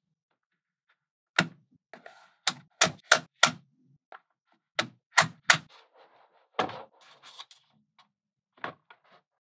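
Small magnetic balls clicking sharply as slabs of them are pressed onto a magnet-ball model: about ten clicks in quick clusters, the first a little over a second in.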